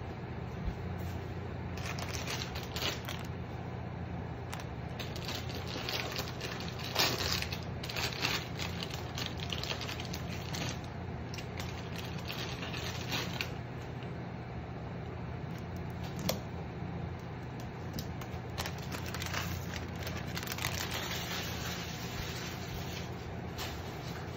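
Water heating in a frying pan with a block of instant noodles, ticking and crackling irregularly as it starts to bubble, over the electric cooktop's steady low hum.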